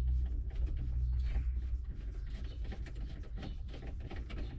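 Screw being driven into a plastic HVAC control housing: many small clicks and ticks from the tool and parts being handled, over a steady low hum.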